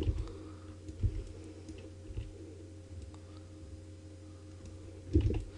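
A few scattered computer mouse clicks over a steady low electrical hum from the recording setup, with a louder short low thump near the end.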